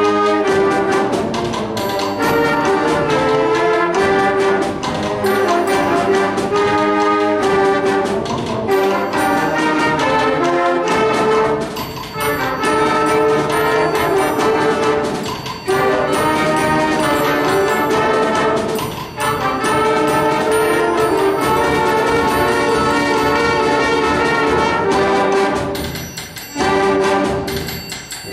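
Middle-school concert band of woodwinds, brass and percussion playing a piece together, full and loud, with brief breaks between phrases and a softer passage near the end.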